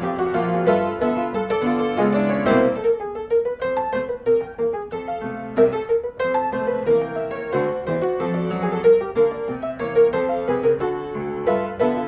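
Background piano music: a light melody of struck notes, with one note repeated again and again through the middle.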